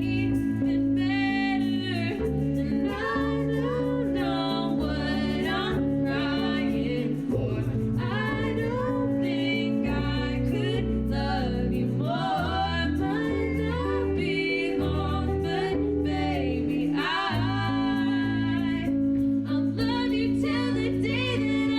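A song with a woman singing over sustained bass and chords, in a blend of pop, R&B and soul.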